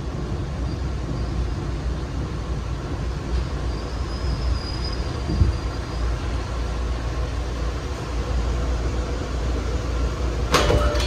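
A new MBTA Orange Line subway car slowing to a stop at a station platform, with steady low rumble and a faint high squeal midway through. Near the end comes a sudden knock with a short tone as the doors open.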